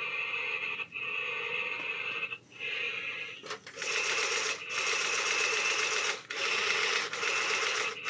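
Electronic sound effect from the built-in speaker of a DEERC remote-control robot spider toy, playing in its third smoke-spray effect mode: a steady rasping hiss broken by brief pauses about every second or so.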